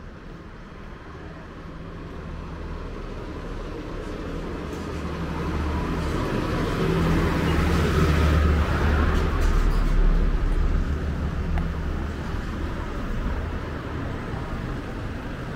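Traffic on a main road: a motor vehicle approaches, its engine and tyre noise growing louder until it passes close by about eight to ten seconds in, then fading somewhat before more traffic comes up near the end.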